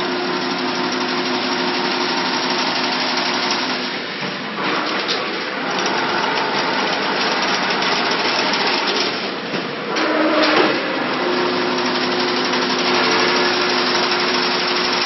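Chain link fence weaving machine running: a dense, continuous metallic clatter with a steady motor hum underneath. The hum drops out about four seconds in, rises briefly near ten seconds, and holds again from about eleven seconds.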